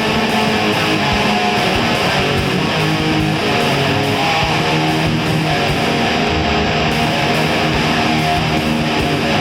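Nu-metal song instrumental section: electric guitar playing a riff over a steady beat, with no singing.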